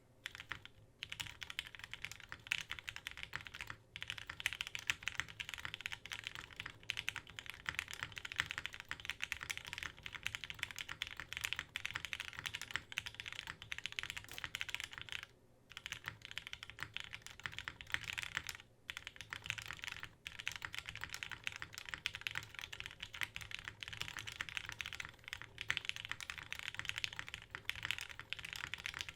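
Fast, continuous typing on a custom mechanical keyboard (Kage) with lubed Gateron Lion switches, a polycarbonate plate and GMK keycaps: a dense stream of keystroke clacks, with short pauses about 4, 15 and 19 seconds in.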